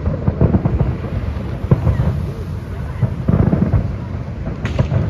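Fireworks display going off, a run of low, muffled bangs over a continuous rumble, with stronger booms about half a second in, near two seconds and past three seconds.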